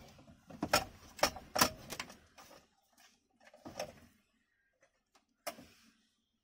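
Handling clicks and knocks from a car stereo head unit's sheet-metal case as RCA plugs are pushed into its input sockets. A quick run of sharp clicks comes in the first two seconds, followed by a few sparse knocks.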